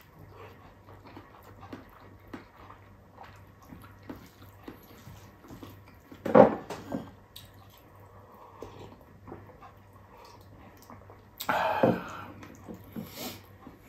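A person eating rice and soupy sinigang with their hands: wet chewing and small mouth clicks, with two louder brief mouth noises about six seconds and twelve seconds in.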